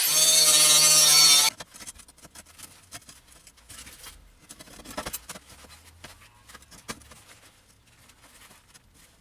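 Angle grinder running at full speed and cutting steel angle iron, a high whine over a harsh hiss, for about a second and a half before it stops abruptly. Then only light scattered clicks and knocks.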